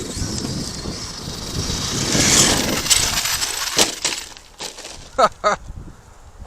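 Arrma Kraton 8S RC monster truck driving over gravel, its electric drive rising to a loud hiss and whine, then a few sharp clattering impacts a little under four seconds in as it lands hard and hits rocks.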